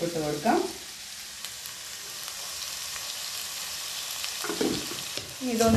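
Chopped onions frying in hot oil in a non-stick kadai: a steady sizzling hiss, with a few light taps of a wooden spatula stirring them.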